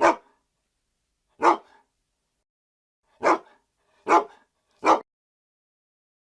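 A dog barking five times, each bark short and sharp, spaced unevenly over a few seconds.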